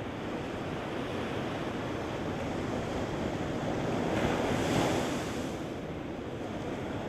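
Surf on a sandy beach: a steady wash of waves, with one wave breaking and rushing up the sand louder about four seconds in, then washing back.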